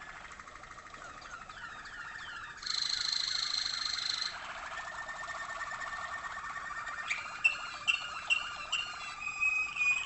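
Waterslager (Malinois) canaries singing their rolling, trilled song. About three seconds in, a loud high note is held for about a second and a half, and from about seven seconds a series of sharp, evenly spaced notes, about two a second, rings out over the trill.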